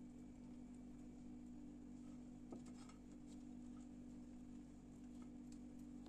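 Near silence: a steady low hum with a few faint ticks from a spoon spreading sauce on a burger bun.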